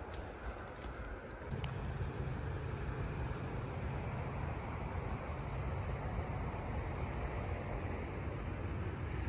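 Footsteps crunching on a gravel path for the first second and a half. Then a steady low rumble with a hiss over it, outdoor ambience of wind or distant traffic.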